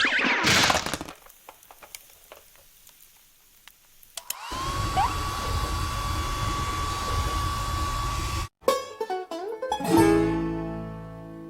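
Cartoon hair dryer sound effect: a motor whine rises as it switches on, then runs steadily over a rushing blow for about four seconds and cuts off suddenly. Near the end a plucked-string musical chord rings out and fades.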